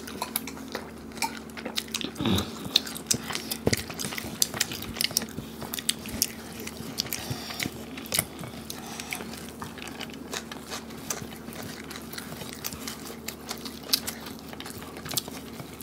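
Two people eating fried rice and chicken curry with their hands: chewing and biting with many small irregular clicks, over a faint steady hum.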